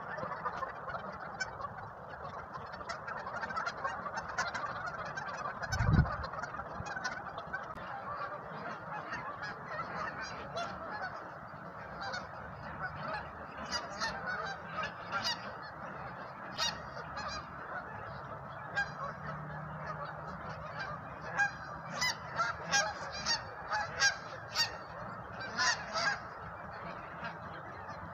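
A large flock of Canada geese on the water, honking and calling without pause, the separate honks growing more frequent and louder over the second half. One low thump about six seconds in. The recording is played back sped up.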